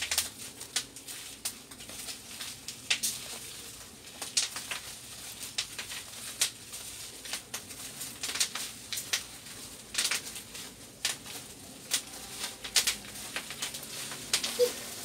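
Clear plastic wrapping of a replacement laptop LCD panel crinkling and rustling under the hands, in irregular sharp crackles.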